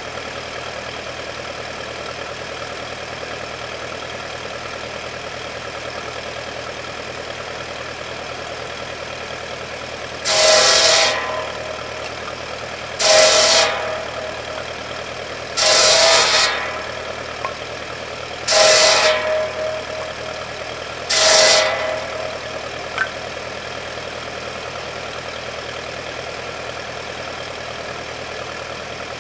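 PTO-driven circular saw bench run off a grey Ferguson tractor, the blade spinning steadily with the tractor engine running. About ten seconds in, the blade makes five short, loud cuts through a thin branch, roughly one every two and a half seconds, each lasting under a second before the running sound returns.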